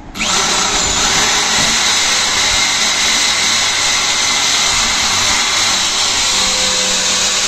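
Corded electric drill, switched from hammer to plain drilling mode, starting up about a quarter second in and then running steadily under load as it bores into the galvanized steel floor of a metal trunk. The bit is making slow, hard progress through the steel.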